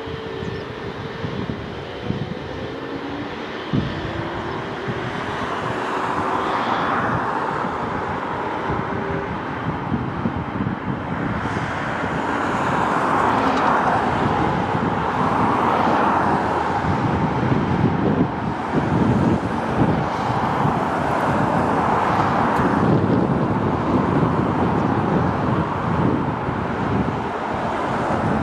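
Boeing 777 freighter's GE90 jet engines at taxi power, a steady rumble and hiss that grows louder from about twelve seconds in as the aircraft rolls past. Wind buffets the microphone.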